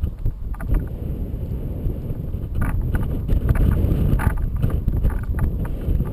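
Wind buffeting the microphone of a camera towed behind a flying paraglider: a loud, steady low rumble of rushing air, broken every so often by short clattering knocks.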